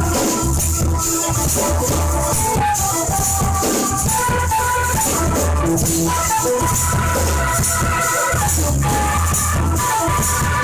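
Live band music with no singing: electric bass, guitar and synthesizer keyboard playing over a handheld tambourine shaken in a steady jingling rhythm.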